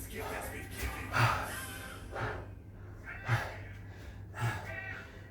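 A man breathing hard and gasping while recovering from burpees and pull-ups, with loud breaths about once a second over a steady low hum.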